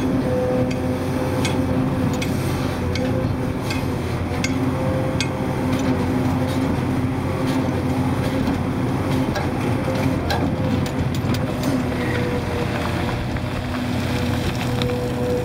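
Hydraulic excavator's diesel engine working steadily under load with a held whine, while its bucket scrapes and digs through broken shale rock, with scattered clacks and knocks of rock against steel. Near the end, loose rock rattles as it spills out of the raised bucket.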